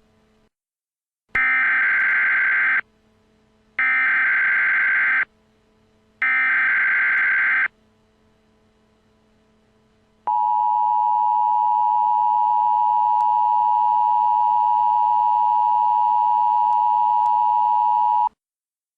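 Emergency Alert System SAME header: three identical buzzing data bursts, each about a second and a half long and about a second apart, followed by the two-tone EAS attention signal held steady for about eight seconds. Together they announce that a new emergency alert broadcast is about to begin.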